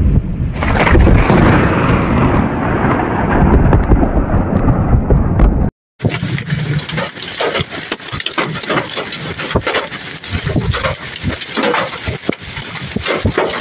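Low, heavy storm rumble with wind buffeting the microphone. After a brief cut about six seconds in, large hailstones pelting the ground in a dense, continuous clatter of sharp impacts.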